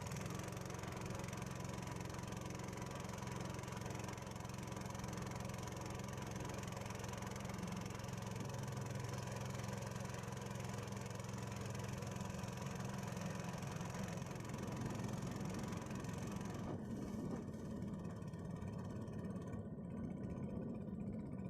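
Small boat engine running steadily at an even speed. About three-quarters of the way through, the higher hiss drops away and the low engine note turns rougher.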